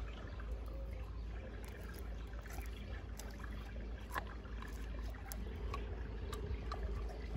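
Faint, steady trickling water, with scattered small clicks and taps through it over a low rumble.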